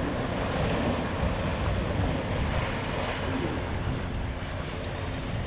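Sea surf breaking and washing over the boulders of a rock jetty, with wind buffeting the microphone.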